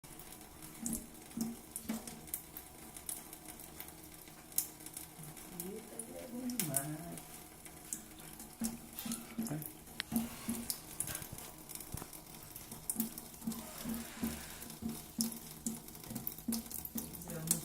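A cat lapping water from a thin stream running from a sink tap: a steady trickle with short, evenly spaced lapping sounds about two a second and small sharp clicks.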